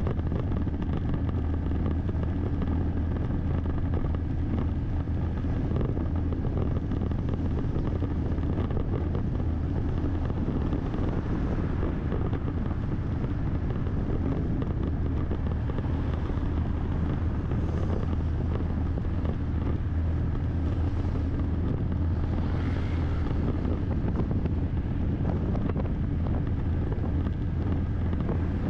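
Motorbike riding along a road: steady wind rushing over the microphone, with the low running of the engine and road noise underneath.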